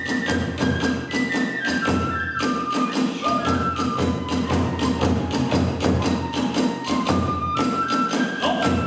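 Live kagura hayashi: a high bamboo flute melody stepping up and down over a fast, steady beat of drums and hand cymbals.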